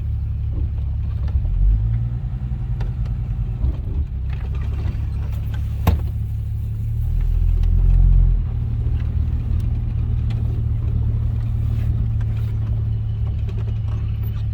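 AMC 199 cubic-inch inline-six engine of a 1967 Rambler American idling steadily, with its vacuum leak cured by replacing a cracked phenolic carburetor spacer. The engine briefly swells in level twice, most around seven to eight seconds in, and a single sharp click sounds about six seconds in.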